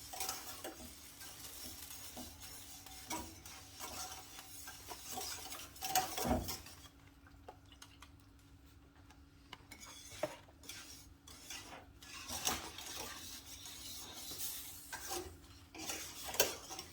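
A utensil stirring a thick flour-and-milk white sauce in a saucepan, scraping and clinking against the pot in irregular strokes, with one louder knock about six seconds in.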